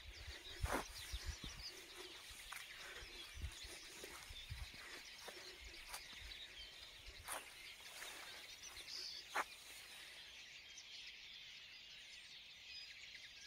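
Faint chorus of many small songbirds singing and chirping, their calls overlapping, with a few soft knocks scattered through it.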